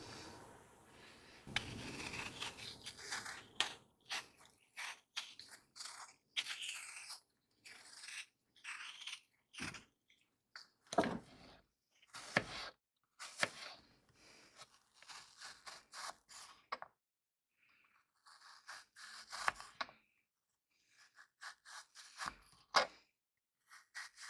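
Small paring knife cutting slices off peeled apples held in the hand: a run of short, crisp cutting and scraping strokes with brief pauses, and a few sharper clicks.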